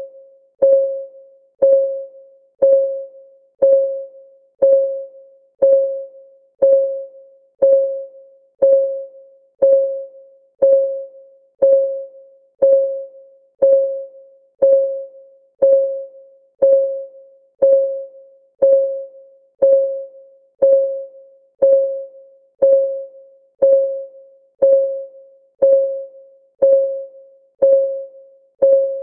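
Countdown timer's clock-ticking sound effect: one short, pitched tick per second, each a bell-like tone that fades quickly, in a strictly even rhythm.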